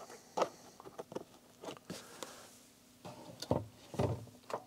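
A handful of short, light knocks and clicks at irregular intervals, the three loudest in the second half: small objects being handled and set down.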